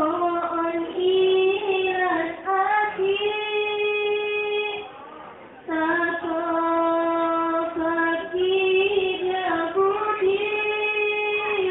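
A young female voice singing a sholawat, an Islamic devotional song, in a slow melody of long held notes joined by short pitch glides. The singing breaks off briefly about five seconds in, then resumes.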